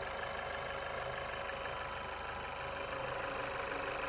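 GM 1.5-litre turbocharged four-cylinder engine idling steadily, heard up close in the open engine bay.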